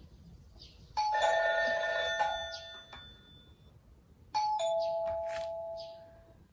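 Anpanman toy keyboard piano sounding an electronic two-note ding-dong chime, high then low, twice, about three seconds apart, each note ringing and fading.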